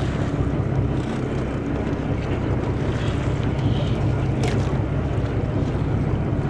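Boat engine running with a steady low hum, under wind buffeting the microphone. A brief click comes about four and a half seconds in.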